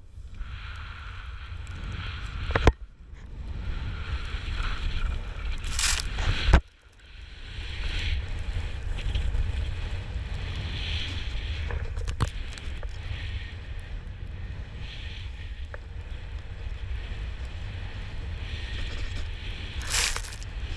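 Snowboard riding through powder snow, heard on an action camera's microphone: steady wind buffeting the microphone under the hiss and scrape of the board through the snow. There are sharp knocks about three seconds in and again about six and a half seconds in, and a burst of hiss as snow spray hits the camera near the end.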